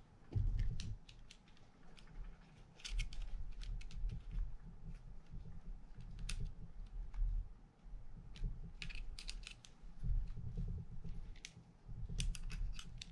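Small sharp clicks and ticks of a precision screwdriver and small screws being handled and driven into a Daiwa BG30 spinning reel's body. The clicks come in clusters, about 3 s in, 9 s in and near the end, over low bumps from the reel being handled in the hand.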